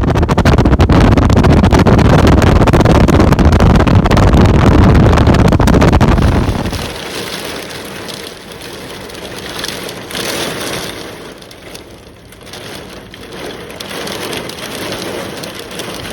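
Strong gale-force wind buffeting the microphone, a loud, steady low rumble that stops abruptly about six and a half seconds in. A quieter hiss of wind with gusts that swell and fade follows.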